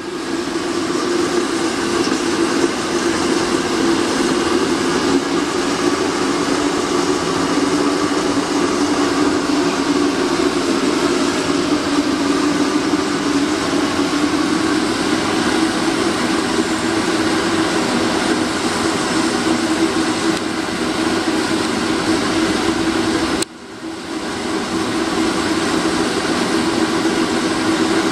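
Homemade waste oil burner, built from an old fire extinguisher bottle with a pipe welded on, running flat out: a steady roar of burning oil vapour and forced air. The sound cuts out for a moment about 23 seconds in, then comes back.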